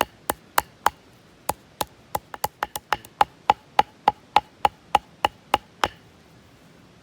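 Rapid, evenly spaced blows of a tool striking, about three a second, each with a short ringing knock. There is a brief pause about a second in, and the blows stop about six seconds in.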